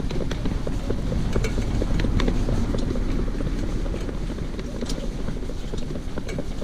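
Shetland pony cart moving along a tarmac road: a steady low rumble of the wheels and wind on the microphone, with scattered clicks and clops from the pony's hooves and the harness and cart.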